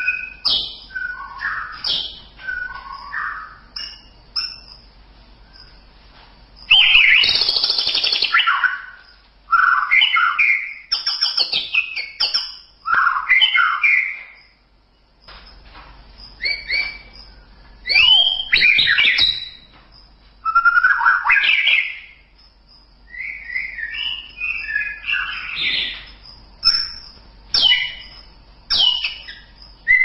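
White-rumped shama (murai batu) singing a run of varied phrases: gliding whistles mixed with harsh notes. Each phrase lasts a second or two, with short pauses between them. The loudest phrase is a harsh, rasping burst about seven seconds in.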